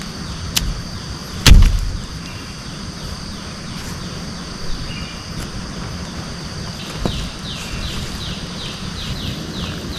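Forest ambience: a steady high drone and a repeating falling chirp, about three a second, from wild animals, growing stronger in the second half. A few sharp knocks and one loud thump about one and a half seconds in, the loudest sound.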